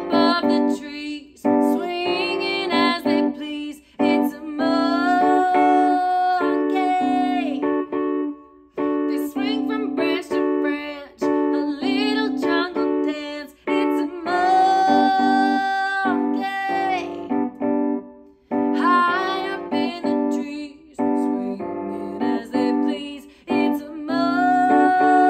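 A children's song: a woman singing a melody in phrases a few seconds long, with long held notes, over piano accompaniment.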